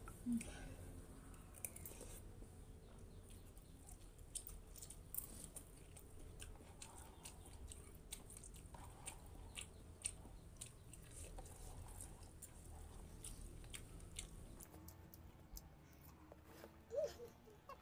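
Close-up mouth sounds of someone chewing instant noodles, with many small wet clicks and smacks.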